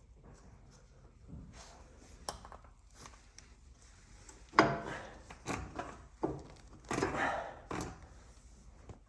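Hand-lever grease gun being worked on a tie rod end: a run of sharp knocks and scraping strokes less than a second apart in the second half, after quieter handling noise.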